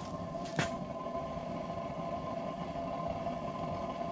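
Propane grill burner jet running at full blast, its flame burning inside a pipe: a steady rush with a steady hum. A sharp click about half a second in.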